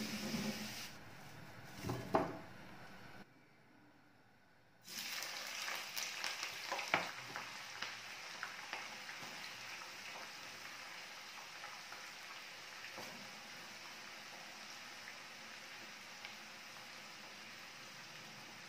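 Sliced red onions deep-frying in hot oil in a pan, sizzling and crackling. The sizzle starts about five seconds in, is busiest for the first few seconds, then eases to a steady, fainter sizzle.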